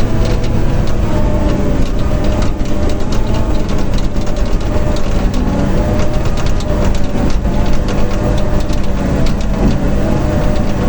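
John Deere 850 crawler dozer's diesel engine running steadily and loud, with frequent sharp clicks over it.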